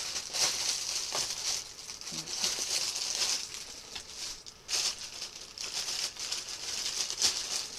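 Plastic packaging bags crinkling and rustling as they are handled and pulled open, in irregular bursts with a few sharper crackles.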